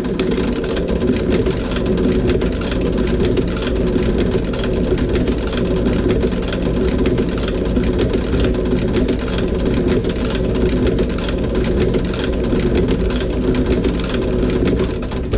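Motor-driven wire stitcher head running continuously, driving wire staples into a paper strip in a rapid, even run of strokes over a steady motor hum. The freshly adjusted wire feed is stitching cleanly, without dropping or jamming a staple.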